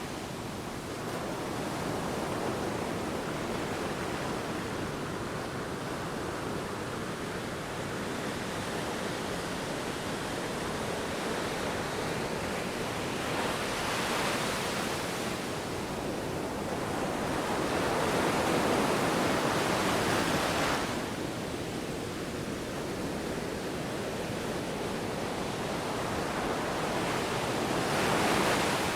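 Sea waves washing and breaking, a continuous rushing wash with a few louder surges, the strongest about two-thirds of the way through and another near the end.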